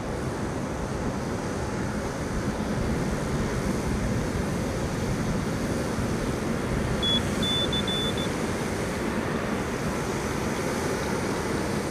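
Steady rushing, rumbling noise of wind on the microphone. About seven seconds in, a quick run of about five short high beeps.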